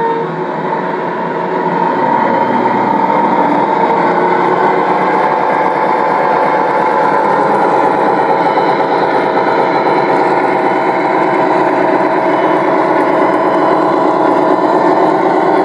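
Sound decoder in a Gauge 1 model diesel locomotive playing diesel engine sound through its small onboard speaker. The engine note builds about two seconds in, then runs steadily as the model drives along.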